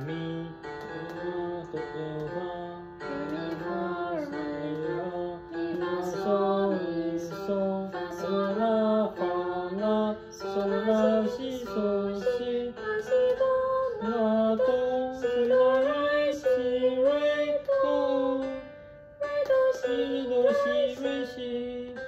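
A song: a singing voice carrying a melody over guitar, with a short break about 19 seconds in.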